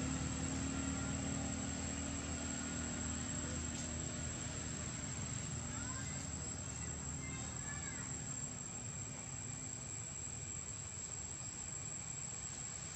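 Low drone of a distant engine fading away over the first nine seconds or so, over a steady high insect buzz, with a few faint bird chirps about halfway through.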